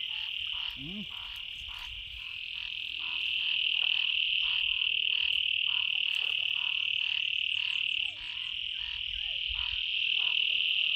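Frogs calling in chorus from flooded ground: a continuous high-pitched trill with a steady run of short croaks, about two or three a second.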